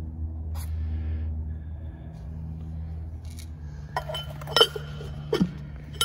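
A few sharp metallic clinks with a brief ring as the aluminium piston of a propeller hub is fitted into its oil can, starting about four seconds in, over a steady low hum.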